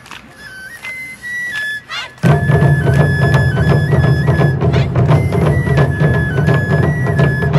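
A Japanese transverse flute plays a melody of held, stepping notes over light drum taps, then about two seconds in a group of taiko drums comes in loudly together and keeps up a dense, driving rhythm under the flute.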